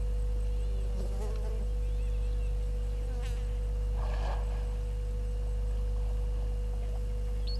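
Steady electrical hum and thin buzzing tone, unchanging throughout, with a few faint short chirps, one rising near the end.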